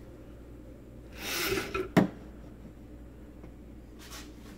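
Handling noise: a brief scraping rustle about a second in, then a single sharp knock, over a low steady hum.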